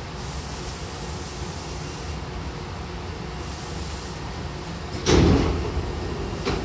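Hankyu commuter train's double sliding passenger doors opening: a sudden loud rush about five seconds in as the doors slide apart, then a second loud burst near the end, over the stopped train's steady low hum.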